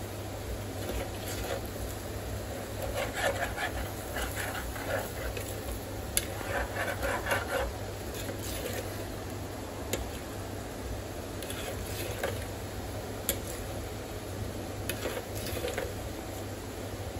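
A spoon stirring and scraping a thick egg curry in a terracotta clay pot, with scattered clicks of the spoon against the pot and a steady low hum underneath.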